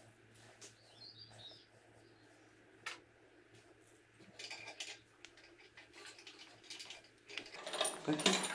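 Faint handling clicks and rustles over a low steady hum, with a bird chirping briefly about a second in. Louder clattering starts near the end.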